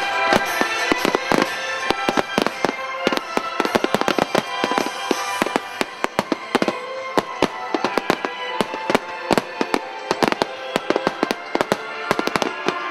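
Finale barrage of aerial firework shells bursting and crackling: dense sharp bangs, several a second, with music playing underneath.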